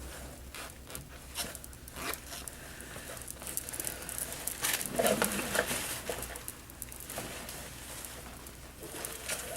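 Handling of thin, soft knit active pants: irregular rustling and crinkling of the fabric, with scattered small clicks.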